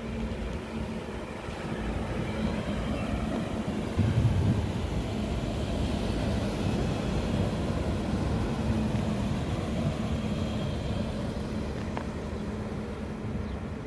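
Class 642 Desiro diesel multiple unit running past on the station track, its diesel engines giving a steady drone over the rumble of wheels on the rails. It grows slightly fainter toward the end as the train moves away.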